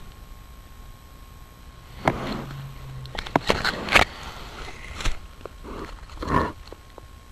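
Black bear handling the trail camera at close range: irregular rustling, brushing and sharp knocks against the camera and its microphone, several separate bursts a second or so apart.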